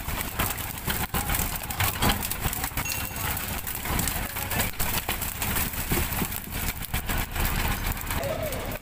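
Working noise on a fishing boat's deck as a brail net full of fish is hauled aboard. There is a steady low engine rumble under a dense wash of splashing, with many irregular knocks and slaps of fish and gear.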